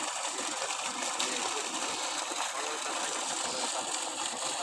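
Water gushing steadily from the delivery pipe of a 3 HP submersible pump that is running.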